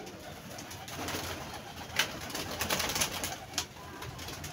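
Domestic pigeons cooing in a wire-mesh loft, with a few sharp clacks and rattles, the loudest about two seconds in and a cluster a second later.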